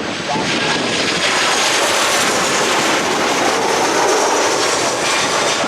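Fixed-wing aircraft's engines passing close: a loud roar with a high whine over it, swelling about a second in and easing off near the end.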